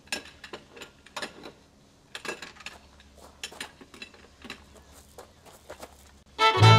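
Metal outboard motor parts clinking and clanking irregularly as they are rummaged through and shifted on a parts trailer. Near the end, bluegrass fiddle music starts.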